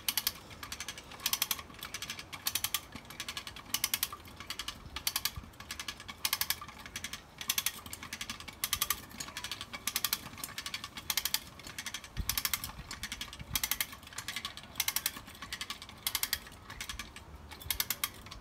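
4000 kg hand winch (come-along cable puller) being cranked under load: its ratchet pawl clicks in a quick run with each stroke of the handle, about one stroke every 1.2 seconds.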